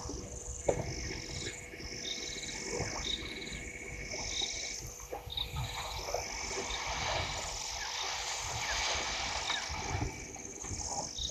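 Dusk chorus of frogs and insects at a waterhole: short high calls repeating about once a second and high trills, over a steady high whine and a low rumble.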